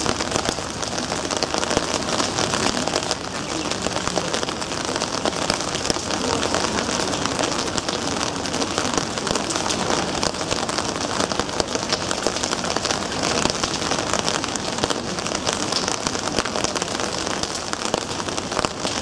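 Steady rain falling: a dense, even crackle of drops that runs without letting up.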